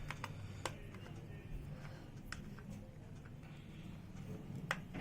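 A RAM module's retail packaging being worked open by hand: a few sharp, scattered clicks and crackles, the loudest near the end, over a low steady hum.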